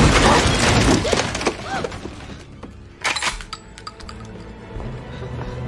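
Gunfire tearing into a wire rack of snack bags and store goods: the blast's noisy tail of scattering, shattering debris, then a second sharp burst of cracks and clatter about three seconds in. Tense film score swells near the end.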